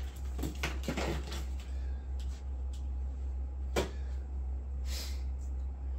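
Packaging being handled: a few light knocks and scrapes against the styrofoam packing, with a sharper knock about four seconds in, over a steady low hum.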